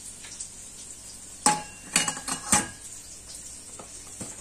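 Metal bowl clinking against the rim of a stainless steel stand-mixer bowl a few times in quick succession around the middle, each knock ringing briefly, as six raw eggs are tipped in. A couple of fainter knocks follow near the end.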